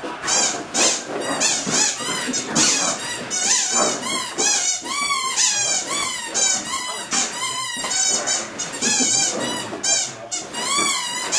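A squeaky dog tug toy (GoCuckoo Mighty GripZ) squeaking over and over, one to two high squeaks a second, as a large dog bites and tugs on it.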